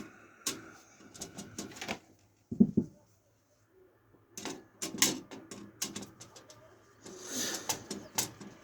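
Scattered clicks and knocks of computer parts and fittings being handled and adjusted, with a short, low pitched sound about two and a half seconds in and a brief rustle near the end.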